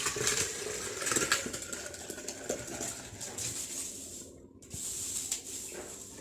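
Kitchen handling sounds as chopped apple and lemon are put into a blender jar: scattered light knocks and rustling over a steady hiss.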